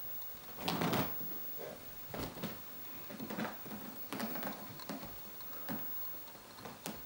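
Maine Coon kittens' paws and claws scuffling and scratching on a fabric-covered cushion as they jump and bat at a teaser toy. The sound comes in irregular rustling bursts, the loudest about a second in, with a sharp click near the end.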